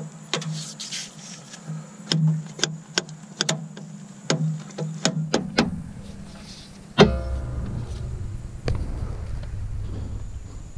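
Front CV axle of a 2014 Subaru Outback 3.6R being worked into place by hand: a run of light metal clicks and knocks, then about seven seconds in a loud ringing clank, with a low rumble and a second knock after it.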